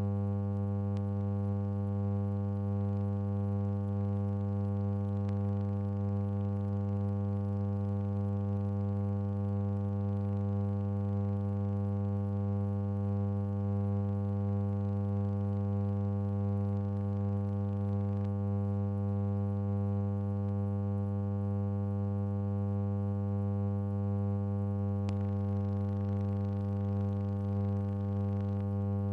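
Steady electrical mains hum with a stack of even overtones, unchanging in pitch and level: the newsreel has no recorded soundtrack, so only this hum remains.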